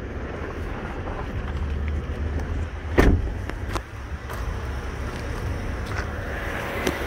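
A car door, the driver's door of a 2020 Chevrolet Traverse, shut once with a thump about three seconds in, over a steady low rumble.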